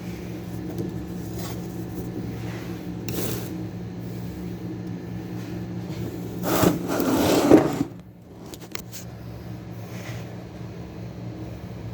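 Metal parts of a starter motor being handled and fitted on the bench: faint knocks and scrapes, then one louder scraping rattle about six and a half seconds in, over a steady low hum.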